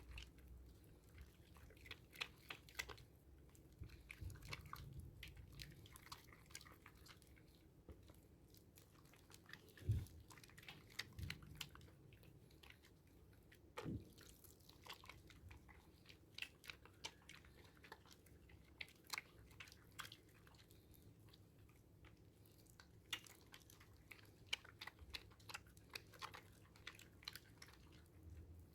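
Soaked handmade sea salt and charcoal soap being lathered: faint, irregular wet clicks and crackles throughout, with two louder soft thuds about ten and fourteen seconds in.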